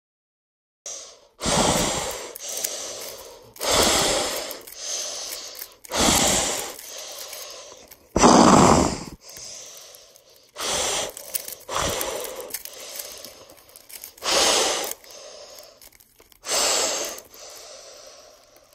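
A plastic 3x3 speedcube being turned fast by hand, in bursts of clacking and rattling about every two seconds, starting about a second in.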